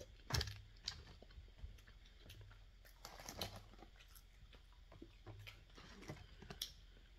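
Quiet eating sounds: chewing and crunching on fried lemon pepper chicken wings and fries, with scattered small clicks and crackles as fingers pick through the wings in a paper-lined takeout box.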